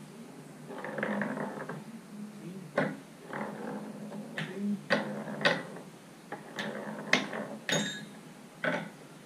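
Irregular sharp wooden clacks and knocks, about eight over several seconds, from a child's wooden ball-drop toy and its balls being handled and knocking on a hardwood floor.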